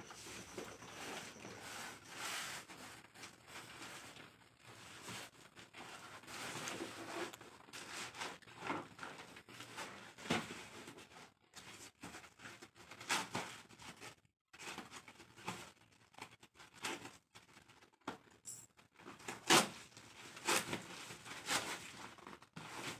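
Cardboard parcel packaging being opened by hand: irregular rustling, scraping and tearing of the cardboard, with a few sharper, louder crackles, the loudest near the end.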